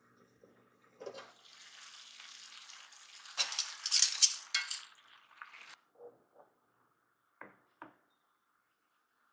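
Beef and onions sizzling in a stainless steel pan, with loud metallic clinks and scraping of a utensil against the pan about three to four seconds in, then a few soft knocks.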